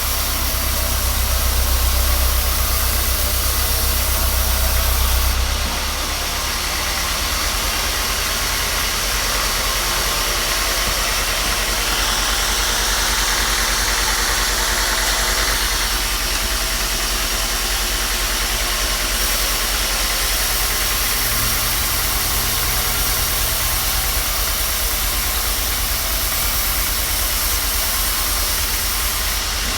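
A machine running steadily, with a deep hum for the first five seconds or so that then drops away, leaving a steadier, lighter running noise.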